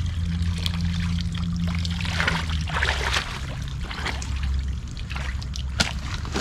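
Shallow river water trickling and splashing, with scattered short knocks and splashes from wading and netting debris, over a steady low hum.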